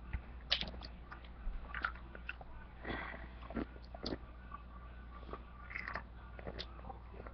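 A person chewing and biting food close to the microphone: irregular small clicks and crunchy smacks of the mouth.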